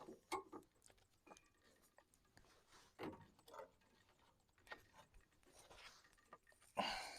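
Faint, scattered clicks and light knocks of hands working metal parts on a band sawmill while the band blade is refitted on its wheel, with a short louder scrape near the end. The sawmill's engine is not running.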